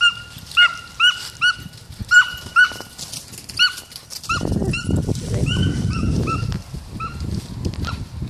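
A dog yipping during a chase: short, high-pitched calls repeated about two or three times a second, spacing out and fading in the last couple of seconds. From about four seconds in, a low rustling noise runs underneath.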